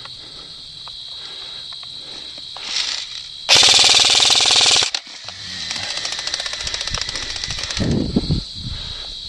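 Airsoft gun firing on full auto: a loud burst of very rapid shots of about a second and a half, followed by a quieter, longer run of rapid fire.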